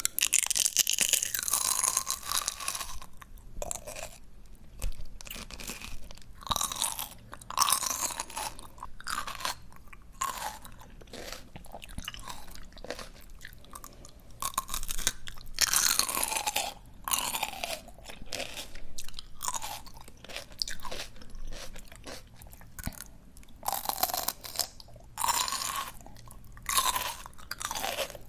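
Close-miked chewing of crunchy fresh greens: repeated bursts of crisp, wet crunches and bites, with the loudest bursts near the start, about halfway through and near the end.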